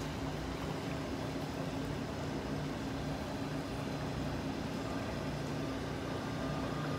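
A steady low engine-like hum over constant outdoor noise, unchanging throughout.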